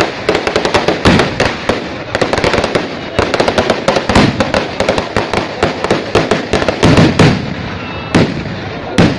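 Ground-level firecrackers going off in a rapid, dense crackle of sharp bangs, several a second. The bangs thin out to a few separate ones near the end.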